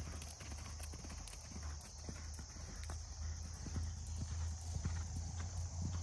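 Hoofbeats of a horse cantering on sand arena footing, a steady run of repeated hoof strikes.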